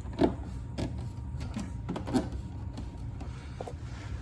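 Soft plastic clicks and rubbing as an aftermarket sequential side marker light is handled and pressed into its fender opening, a few scattered taps over a steady low hum.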